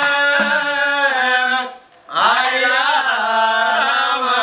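A man singing a line of a Tamil folk musical story in a chanting style, holding long notes, then breaking off for a breath about two seconds in and going on with a wavering melody.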